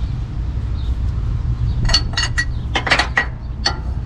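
Metal hand tools clinking together: several sharp, ringing metallic clinks between about two and four seconds in, over a steady low rumble.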